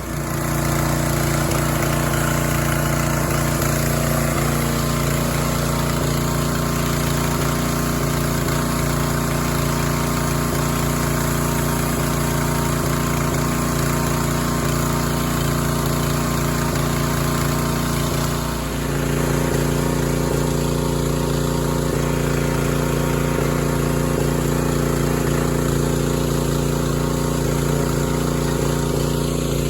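Pressure washer's gas engine running steadily under the hiss of the water spray. About two-thirds through, the sound dips briefly and the engine note shifts.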